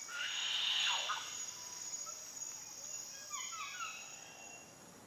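Tropical rainforest ambience: a steady high-pitched insect drone, with bird calls over it, including a quick run of short descending whistled notes about three to four seconds in.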